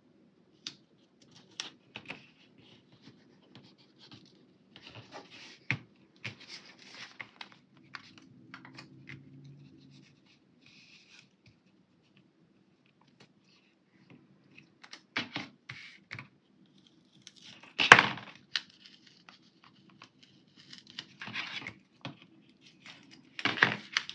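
Paper stickers being peeled up and pressed down on a planner page: scattered short rustles and scratchy rubs with quiet gaps between them, and one sharp tap, the loudest sound, about three-quarters of the way through.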